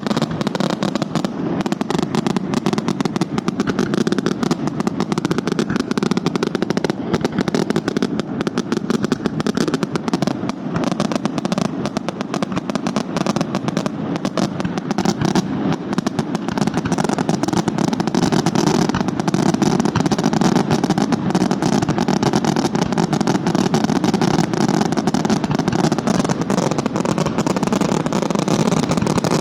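Italian fireworks barrage (scarica): a dense, continuous rattle of rapid-fire reports with no gaps, getting a little louder about two-thirds of the way in.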